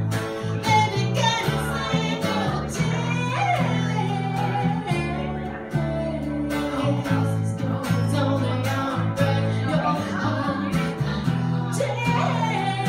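A woman singing over her strummed acoustic guitar, with a bowed upright bass holding long low notes underneath.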